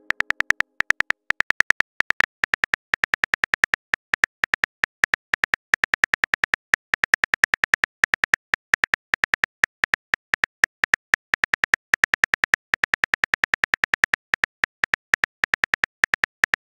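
Simulated phone-keyboard typing clicks from a texting-story app: a rapid, slightly uneven run of short, crisp taps, several a second, as a long message is typed out.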